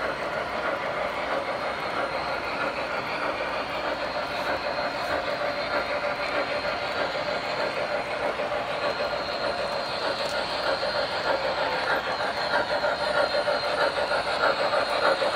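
O-scale model trains running on metal track: a steady rumble of metal wheels on the rails. It grows louder near the end as a model steam locomotive comes close.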